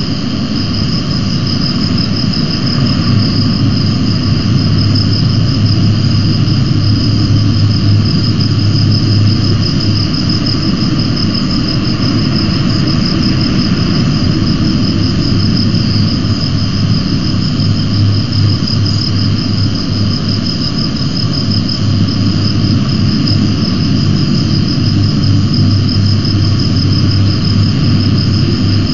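Steady outdoor ambience: a low wind rumble on the microphone under a continuous high-pitched insect trill.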